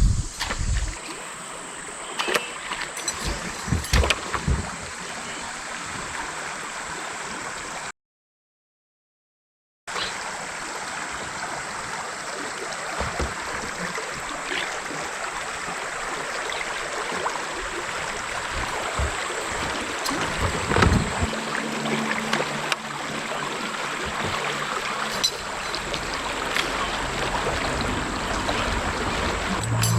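Steady rush of running river water, with a thin high whine over it and a few knocks in the first few seconds. The sound cuts out completely for about two seconds, then the water resumes.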